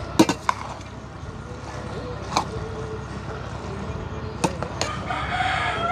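Several sharp knocks: three in quick succession at the start, one in the middle and two more near the end. A rooster starts crowing near the end.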